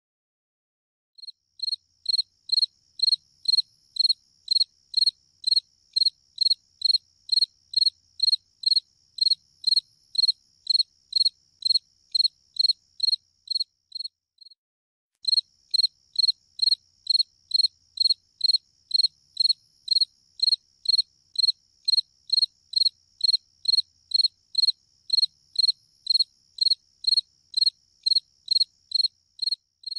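A cricket chirping in a steady, even rhythm of about two high-pitched chirps a second over a fainter steady high buzz, with a short break about halfway through.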